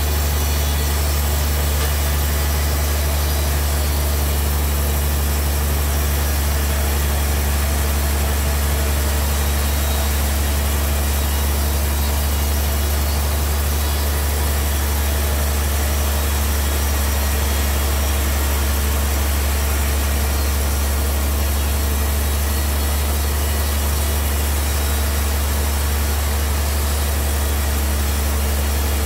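Large band sawmill running steadily as it saws a big trembesi (rain tree) log: a loud, even low hum from the mill's drive, with a hiss of noise above it, unchanging throughout.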